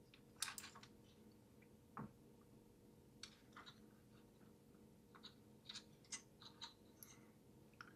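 Faint, scattered clicks and light scrapes of a mini PC's bottom cover being pressed and worked against its case, a tight fit that will not seat.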